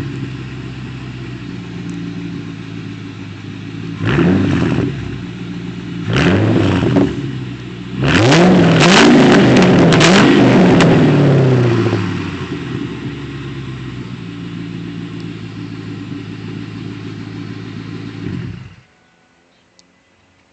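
2004 Ford Mustang GT's V8 exhaust with the mufflers deleted and the catalytic converters kept. It idles, is blipped twice, then is revved and held for about four seconds before settling back to idle. Near the end it shuts off abruptly.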